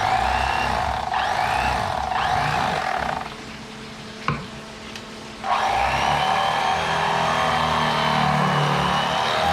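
Electric fillet knife running as it cuts through fish, its motor pitch shifting under the load; it cuts off about three seconds in, a single click sounds in the pause, and it starts again about two seconds later.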